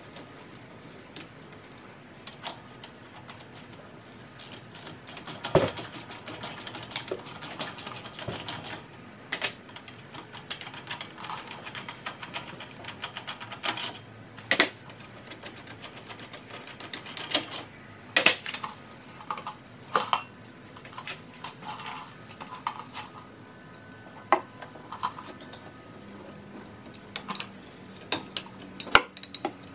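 Hand tools clicking and knocking against a front brake caliper and its fittings, with a fast, even run of clicks from about five to nine seconds in and scattered sharp knocks after.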